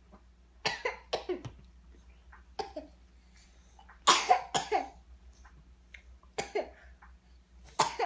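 A small child coughing: about seven short coughs, two of them in quick pairs, the loudest pair about four seconds in.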